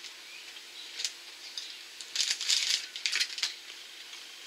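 A plastic snack-bar wrapper crinkling as it is handled: a short crinkle about a second in, then a longer stretch of crinkling and rustling in the middle.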